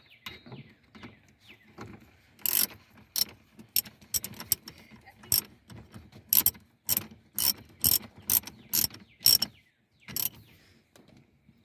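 Ratchet wrench clicking in short, irregular bursts while the new seat belt buckle's mounting bolt is screwed in, with softer knocks and scrapes before and after.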